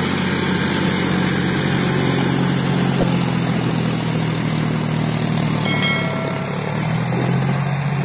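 Tractor diesel engine running steadily under load, pulling a rotavator through flooded mud.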